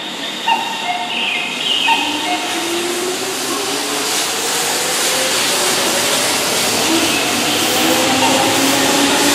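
Keihan 2600-series electric train pulling away from the platform. Its traction motors give a whine that rises steadily in pitch as it accelerates, while the wheel and rolling noise grows louder.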